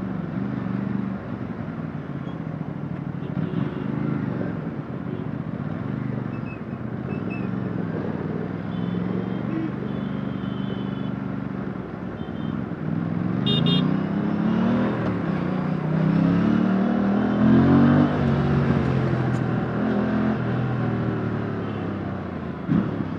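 2024 Aprilia RS457's 457cc parallel-twin engine through its stock exhaust, heard onboard while riding. It runs steadily at low revs for the first half, then the revs rise and fall several times from about halfway through.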